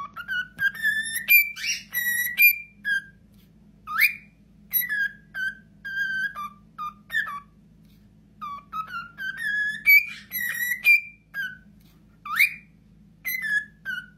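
Cockatiel whistling a tune: a run of short whistled notes that step, rise and fall, with brief pauses, the same phrase coming round a second time partway through.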